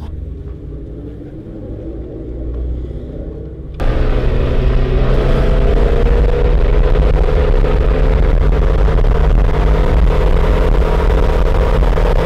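Low engine rumble from idling cars. About four seconds in it switches suddenly to loud, steady engine noise as a supercharged 5.0 Mustang and a turbocharged K24 Honda Civic race at speed from a rolling start, heard from a car running alongside.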